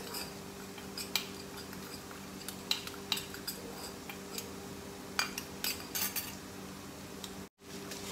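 A spoon clinking and tapping against a small bowl at irregular moments while dry spice powders are mixed, over a steady low hum. The sound cuts out briefly near the end.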